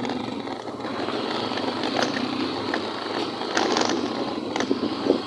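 Motorcycle ridden over a rough, potholed dirt road: its engine runs steadily under wind and road noise, with several sharp rattling knocks from the bumps.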